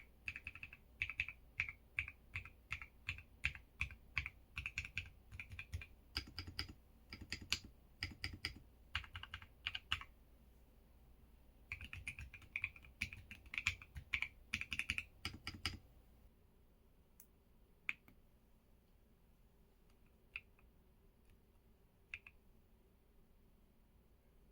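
Typing on an EPOMAKER x LEOBOG K81 Pro mechanical keyboard: quick runs of keystroke clicks, a short pause of about two seconds, another run, then typing stops about two-thirds of the way in, leaving a few single key clicks.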